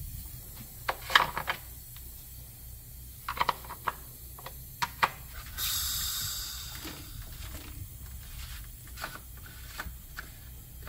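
Sharp clicks and knocks of hands working at the engine while a leak-down tester is fitted to a cylinder. Around the middle comes a hiss of compressed air lasting about a second and a half. A low hum runs underneath.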